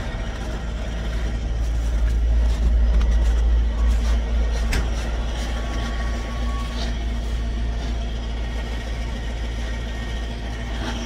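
Heavy diesel tractor engine idling, a steady low rumble.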